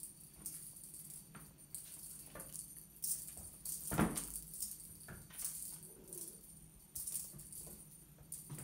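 Kittens' paws and claws scrabbling and skittering on a laminate plank floor as they pounce at a wand toy: quick scratchy rustles every half second or so, with a thump about four seconds in as a kitten lands.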